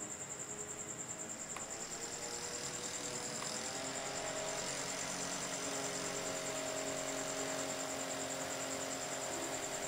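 Portable mist air cooler's small fan motor, modified for higher speed, whirring. After a click about one and a half seconds in, its pitch rises and it grows louder over the next few seconds as it speeds up, then runs steady at the higher speed. A thin high whine runs throughout.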